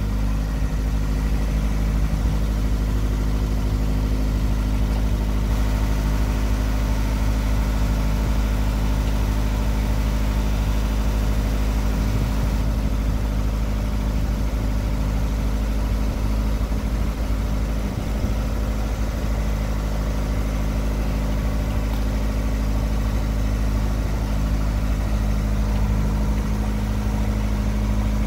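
A motorboat's engine running steadily, an even hum with a low rumble that stays constant throughout.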